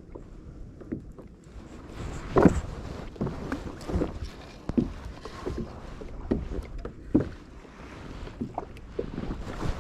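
Small fishing boat on the water: a run of irregular knocks against the hull over a low wind rumble on the microphone, the loudest knocks about two and a half seconds in and again about seven seconds in.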